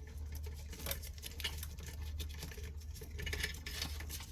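Light rustling and irregular small clicks of a car's wiring harness and its plastic connectors being handled and pulled loose from behind the dash.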